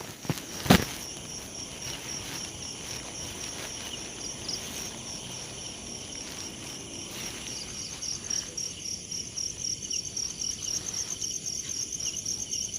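Night insects, crickets among them, chirping steadily in a high, fast, regular pulsing trill. A single sharp knock sounds just under a second in.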